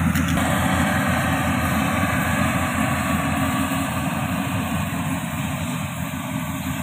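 Yanmar YH700 combine harvester's diesel engine and threshing machinery running steadily while it cuts ripe rice, slowly fading a little.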